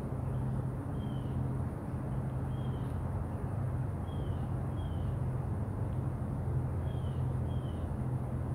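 A steady low hum, with a small bird giving about six short, high, falling chirps over it.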